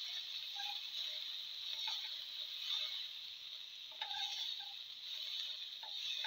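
Tomato pieces sautéing in hot oil in a frying pan, with a steady sizzle, while a spatula stirs them and scrapes across the pan about once a second.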